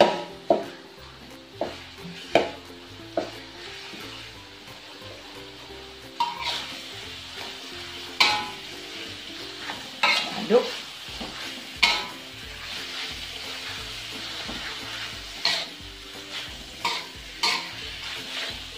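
Minced chicken and onions frying in oil in a metal wok, a steady sizzle, while a metal spatula stirs them, scraping and knocking against the wok in about a dozen sharp, irregular strokes.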